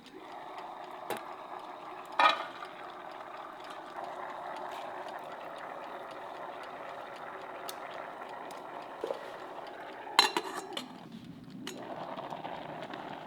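Steady rush of running water that pauses briefly near the end and starts again. Two sharp clinks of metal ring out over it, one a couple of seconds in and a louder one about ten seconds in.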